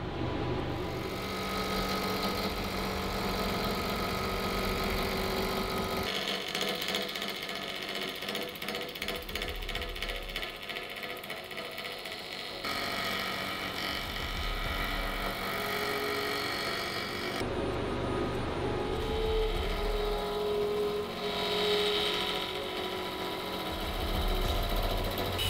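Wood lathe running with a gouge cutting into a spinning blank of burl and cast resin. The sound changes abruptly three times.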